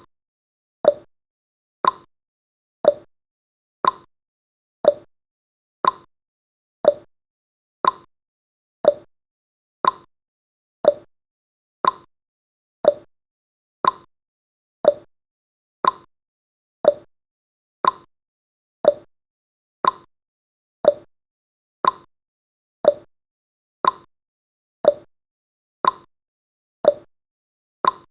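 Countdown timer's tick sound effect, a short sharp tick repeating steadily once a second.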